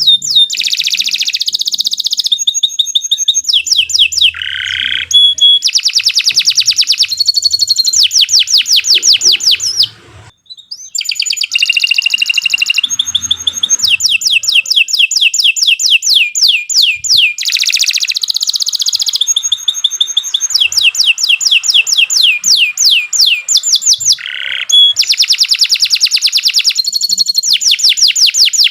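Domestic canary singing a long, loud song of fast trills, each phrase a rapid run of repeated high notes, the phrases following one another with only a brief pause about ten seconds in.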